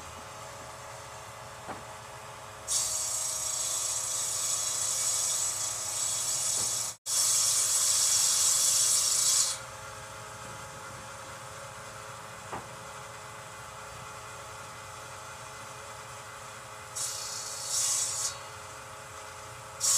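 Lumber-yard woodworking machinery running with a steady hum. Three times, for a few seconds each, a hissing, rasping noise of timber being cut by machine: about three seconds in, again right after a brief dropout at about seven seconds, and near the end.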